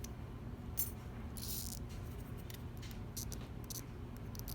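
Light metallic clicks and ticks of small lock pins and springs being handled and set down, with a brief scrape about one and a half seconds in, over a steady low hum.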